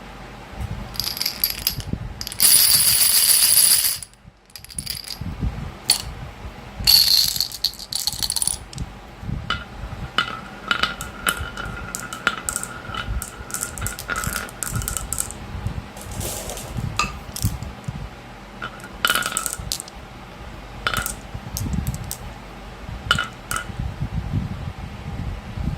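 Marbles rolling and clattering down a marble run, with many sharp clicks and rattles. A dense, loud rattle comes about two and a half seconds in and stops abruptly about a second and a half later.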